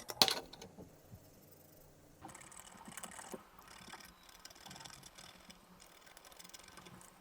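Faint scraping and scratching of a hand tool on the 3D-printed plastic of a model ammo crate, with small irregular ticks, starting about two seconds in.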